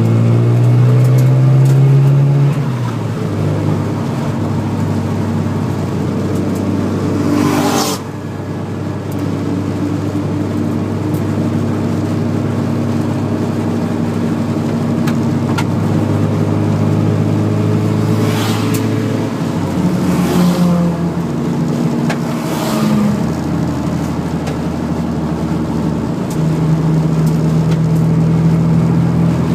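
Car engine heard from inside the cabin while the car is driven hard on a race circuit. The pitch climbs under acceleration and steps down sharply at gear changes, about 3 and 8 seconds in and several more times in the second half.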